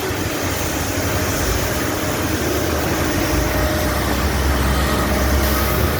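Old Caterpillar asphalt milling machine running steadily, a loud unbroken noise with a deep rumble underneath.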